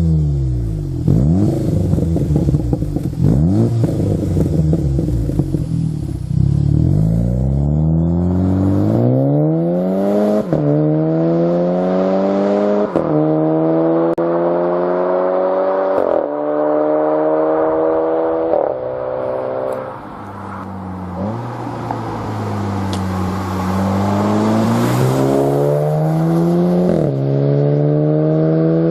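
Seat Leon Cupra ST's turbocharged 2.0-litre four-cylinder engine and aftermarket exhaust revving in a few quick blips, then accelerating through the gears. Its pitch climbs and drops back at each upshift, four times. After a lift-off about two-thirds of the way through it pulls up through the gears again.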